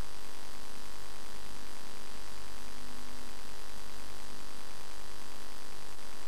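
Steady hiss with a low mains hum from an analog video-tape recording, with no other events.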